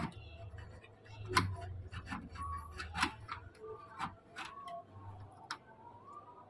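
Irregular metallic clicks and taps, roughly one a second, as a bent metal rod knocks and scrapes against an aluminium window frame and its glass while being worked into the gap at the sill.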